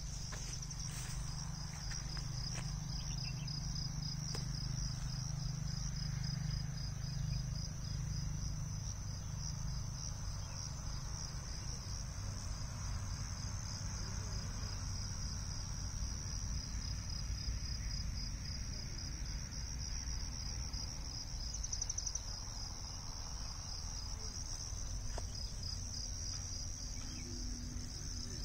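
Insects in the orchard trilling steadily in a continuous high-pitched chirring, over a low rumble.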